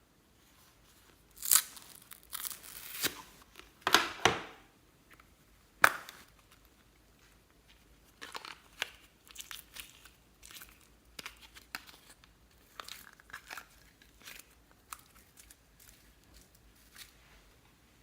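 Packaging being torn open and crinkled: a few loud, sharp tearing crackles in the first six seconds, then softer scattered rustling and clicks.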